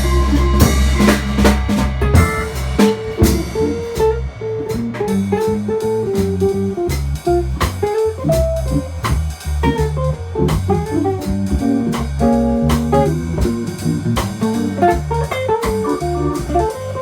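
Jazz organ trio playing: a guitar solos in single-note lines over drum kit and organ accompaniment, after a held organ chord dies away in the first two seconds.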